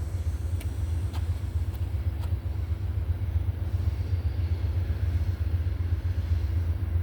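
Amtrak passenger train rolling by with a steady low rumble. A few faint clicks come about half a second apart in the first couple of seconds.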